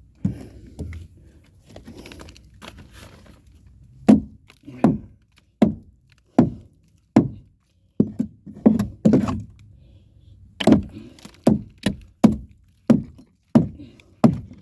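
Hammer blows on an old wooden floor joist, knocking it loose from its nails. Faint knocking at first, then a run of about fourteen heavy strikes, roughly one every second or less, starting about four seconds in.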